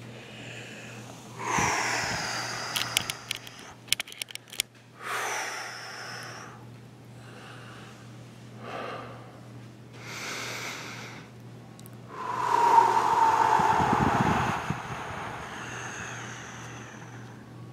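A person breathing out hard during assisted stretching: several long, noisy exhales, the loudest about twelve seconds in. A run of quick clicks comes around three to four seconds in.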